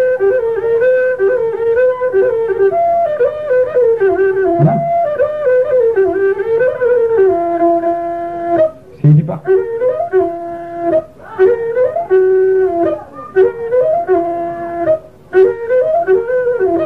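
Flute playing a slow melody of held notes that step up and down between two or three pitches, broken by a few short pauses.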